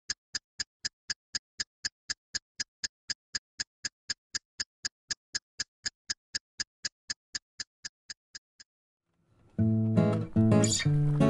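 Typing sound effect: evenly spaced key clicks, about four a second, fading near the end. After a short pause, acoustic guitar music starts about ten seconds in.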